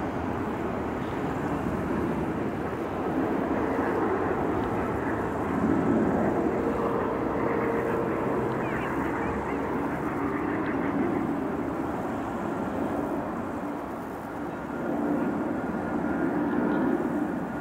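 Boeing 747-400 freighter's four jet engines as it climbs out after takeoff: a steady jet rumble with a low hum, dipping briefly about fourteen seconds in before swelling again.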